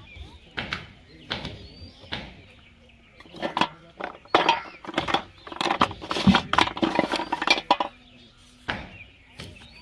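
Plastic PVC pipe fittings clattering and clinking against each other and a metal basin as a hand rummages through them. The clatter is busiest in the middle stretch, then stops.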